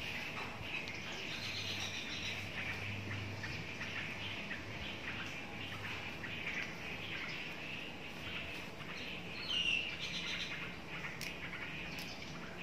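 Birds chirping steadily, with one louder short call that falls in pitch about ten seconds in.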